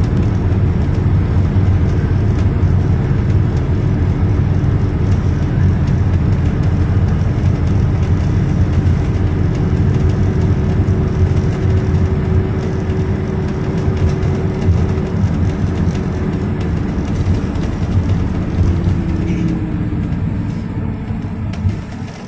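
Cabin noise of a moving GAZelle Next minibus with its Evotech 2755A engine: a steady engine drone and road rumble. A whine slides lower and the noise eases off near the end as the bus slows.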